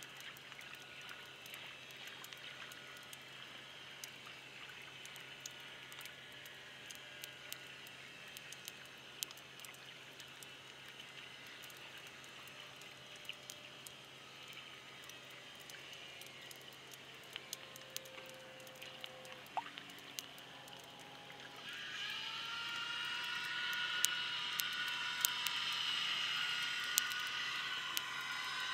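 Faint underwater sound on the seabed: a low hiss of water with many scattered light clicks and ticks. About three-quarters of the way through, a louder whine of several steady tones comes in and stays.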